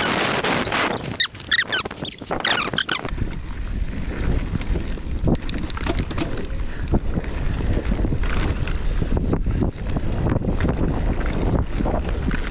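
Mountain bike riding down a rough dirt trail. At first wind rushes over the camera's microphone, with a few brief wavering squeaks. About three seconds in the sound changes suddenly to a steady low rumble, with many quick clicks and rattles from the bike and its tyres over the rough ground.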